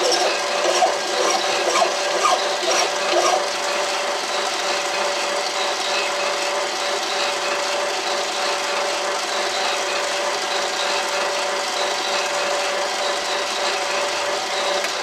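Mini lathe running with a steady gear-and-motor whine while a strip of abrasive cloth is held against a small spinning steel pin, rounding its tip into a ball shape.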